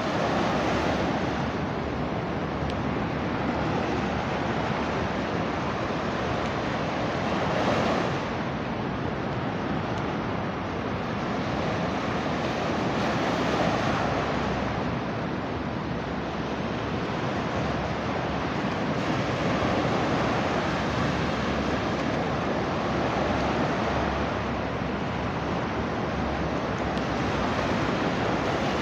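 Rough sea surf breaking and washing up a beach, a continuous rush of water that swells with each wave every six to eight seconds.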